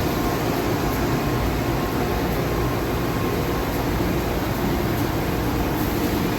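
A running Nexturn SA-32E CNC Swiss-type lathe and its high-pressure coolant unit: a steady machine hum with a faint thin whine.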